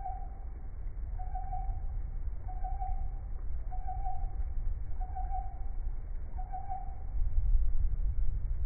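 The strange sound: a short mid-pitched toot of one steady pitch, repeating at a slow, even pace about every 1.3 seconds, over a constant low rumble.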